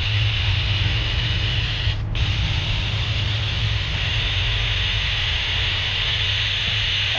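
Paint sprayer spraying: a steady hiss over a low motor hum, with the hiss cutting out briefly about two seconds in as the spray stops for a moment.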